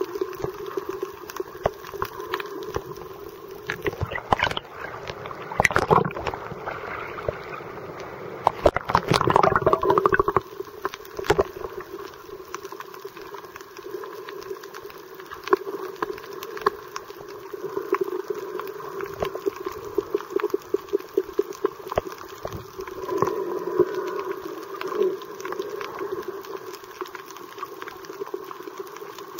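Underwater water noise as heard by a submerged camera: gurgling and bubbling with many sharp clicks over a steady hum, with louder bursts of gurgling about four seconds in and again around nine seconds.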